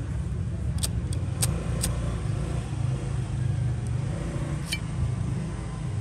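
Sharp metallic clicks of a vintage lighter being handled, four in quick succession in the first two seconds and one more near the end, over a steady low background rumble.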